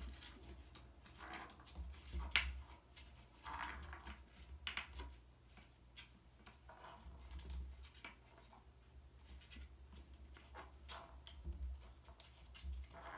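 Marbles rolling and clicking in the track of a scratching-post base as kittens bat at them with their paws: faint, irregular taps and rattles, with a sharper clatter about two seconds in.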